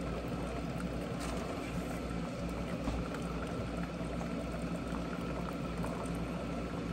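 Coffee maker heating water, a steady hiss with a low hum underneath.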